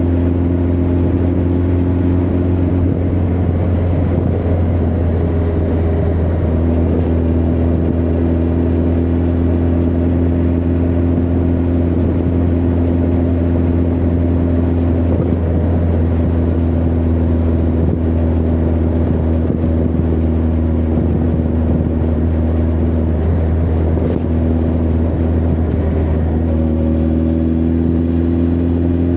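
Honda CB1300 Super Bol d'Or's inline-four engine and exhaust running at a steady cruise, heard from the rider's position. The engine note wavers briefly about three seconds in and again near the end, then settles back to a steady pitch.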